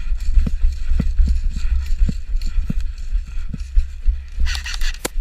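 Footsteps of a player moving quickly across the ground, about two steps a second, each picked up as a dull thump by the body-worn camera over a steady low rumble of handling and movement. Near the end comes a short burst of hiss and a sharp click.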